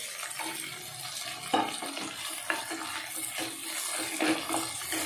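Chopped green capsicum sizzling in hot oil in a non-stick kadai while a spatula stirs it, with a few sharp scrapes of the spatula against the pan.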